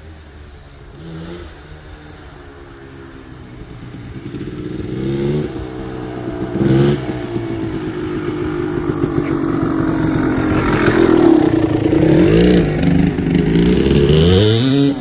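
Freshly rebuilt Suzuki RMX250 two-stroke single-cylinder dirt bike engine revving: a few short throttle blips, then the revs rising and falling as it grows steadily louder, with two sharp blips near the end.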